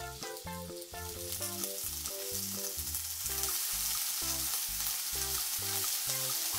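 Two slices of smoked bacon sizzling as they fry in a non-stick frying pan over medium-low heat. The sizzle grows louder about halfway through as the fat renders, and an upbeat background melody plays throughout.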